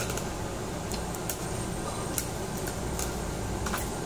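Scattered light clicks of metal tongs on a tabletop barbecue grill, about once a second and bunched near the end, over a steady hum of ventilation and restaurant background.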